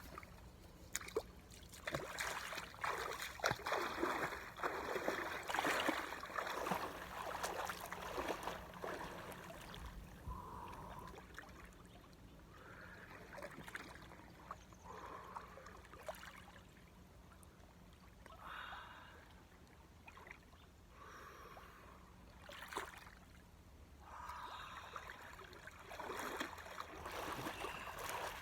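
Water splashing and trickling as a person wades into and immerses in cold open water. The splashing is irregular, busiest in the first several seconds, quieter through the middle, and picks up again near the end.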